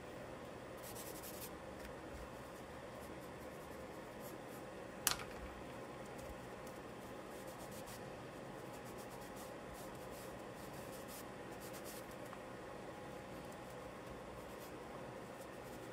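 Charcoal scratching and rubbing on paper in faint, short strokes over a steady low hum, with a single sharp click about five seconds in.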